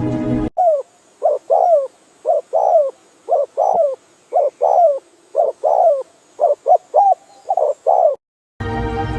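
A bird calling: about twenty short notes, each falling in pitch, mostly in clusters of two or three. Soft background music stops just before the calls begin and comes back near the end.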